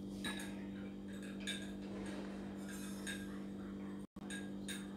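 Faint, scattered light clinks, a few short glassy or metallic ticks, over a steady low hum.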